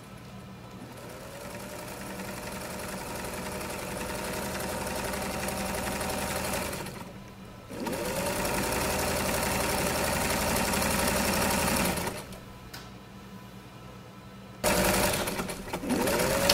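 Industrial sewing machine running in long stretches. It stops twice and starts again, each start with a rising whine as the motor speeds up. The last run, near the end, is the loudest.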